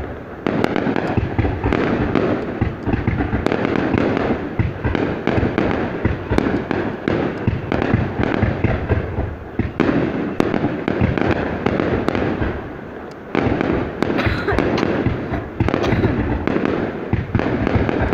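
New Year's Eve aerial fireworks going off in a dense, continuous barrage of bangs and crackling bursts, easing briefly about thirteen seconds in before picking up again.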